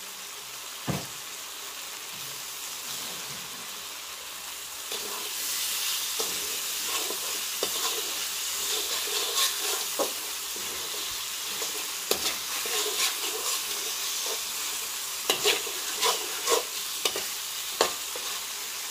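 Sauce and spice paste sizzling in hot oil in a metal wok, with a slotted metal spatula scraping and tapping against the pan as it is stirred. The sizzle gets louder about five seconds in, and the scrapes come thicker near the end.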